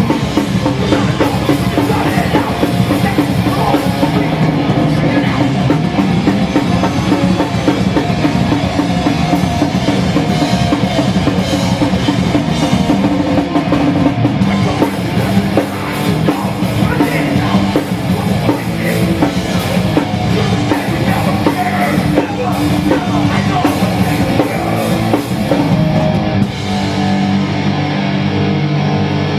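Hardcore punk band playing live at full volume: heavily distorted guitars and bass over fast, pounding drums. Near the end the drums drop out, leaving the guitars ringing on their own.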